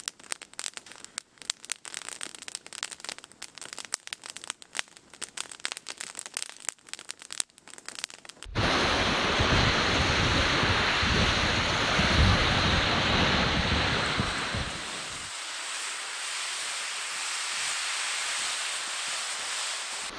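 A campfire crackling with many sharp irregular pops. About eight seconds in, this cuts suddenly to a loud, steady rushing hiss with low rumbling gusts of wind on the microphone; the rumble eases near the end while the hiss goes on.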